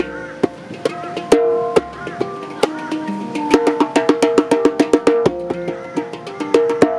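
A handpan (hang drum) and a djembe played together by hand: the handpan rings out sustained, bell-like pitched notes while the djembe is struck with sharp slaps and tones. About halfway through, the strokes quicken into a fast run of notes that eases off near the end.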